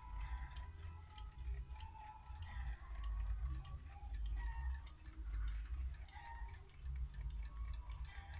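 Antique mechanical table alarm clock ticking steadily, about five ticks a second, over a low rumble.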